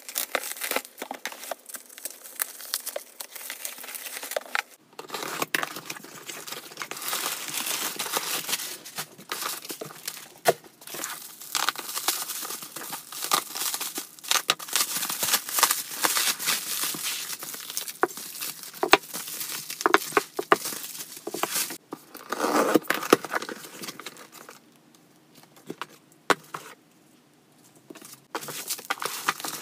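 Plastic bubble wrap crinkling and being torn open as packages are unwrapped by hand, with many small sharp crackles, along with cardboard box flaps being handled. It goes quieter for a few seconds near the end.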